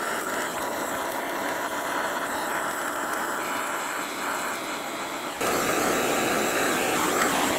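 Hand-held gas torch flame hissing steadily while it heats a radiator tank seam for soldering, growing louder about five seconds in.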